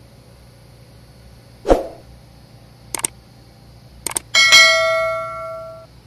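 Subscribe-reminder sound effect: a short whoosh, two quick double clicks, then a notification bell dings and rings for about a second and a half before cutting off. A steady low machinery hum runs underneath.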